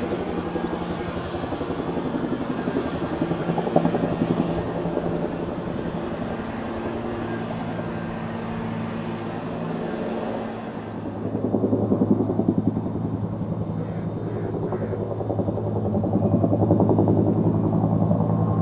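A helicopter flying, its rotor chop and engine running steadily. About eleven seconds in, the sound turns lower and duller.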